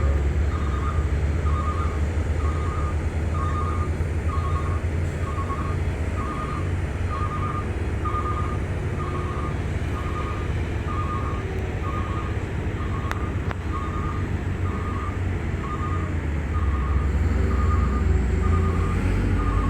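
Heavy diesel earthmoving machinery running with a deep, steady rumble, while a backup alarm beeps about once a second. The engine noise swells louder near the end.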